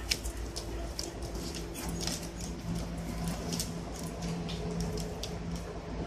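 Havalonka puppies scuffling as they play-wrestle on a fleece bed: a scatter of small clicks and scratches, with a steady low hum underneath from about two seconds in.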